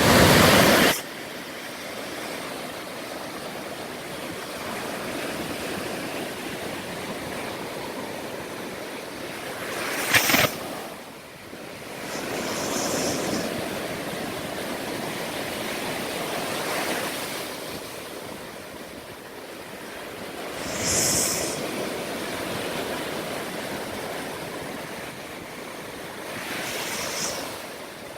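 Ocean surf breaking and washing up a beach, a steady hiss of waves that swells and fades every few seconds. There is a loud rush in the first second and a short sharp burst about ten seconds in.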